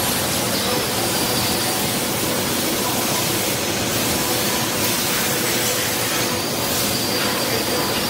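Industrial chiller and dehumidifier running: a steady rush of fan and airflow noise with a faint machine hum in it.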